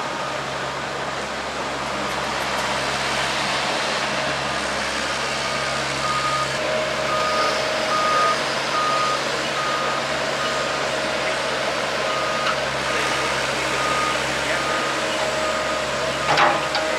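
A vehicle's reversing alarm beeping at an even pace, about one and a half beeps a second, starting about a third of the way in, over a steady engine hum and outdoor noise. A single sharp knock near the end.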